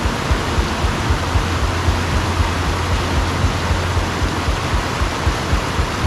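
Steady rush of a mountain stream, with low thumps of walking footsteps about two to three times a second.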